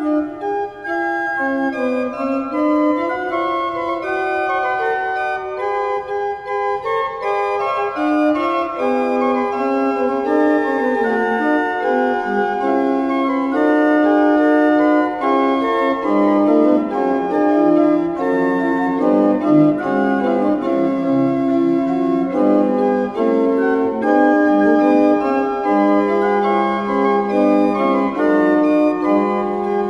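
Organ music: a melody of long held notes over slowly changing chords.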